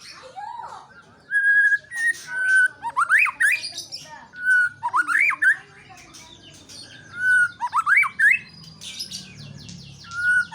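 White-rumped shama singing one phrase over and over, about four times: a short held whistle, then a run of quick rising notes, with fainter high chips and chatter between.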